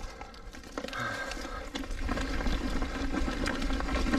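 Mountain bike rolling down a rough dirt and rock trail: the tyres crunch and the bike rattles with many small clicks over a low rumble, all getting louder about halfway through as speed builds.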